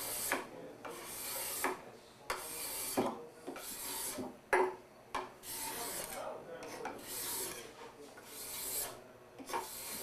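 Wood being worked by hand with a steady run of back-and-forth rasping strokes, about one and a half a second.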